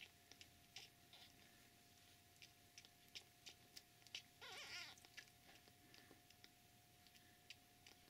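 Day-old kittens nursing: quiet wet sucking and smacking clicks, with one short mew, rising then falling, from a kitten about four and a half seconds in.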